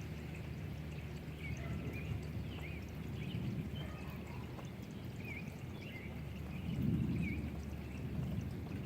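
Steady rain with water pouring and running, and a bird chirping short notes now and then. A low rumble swells briefly about seven seconds in.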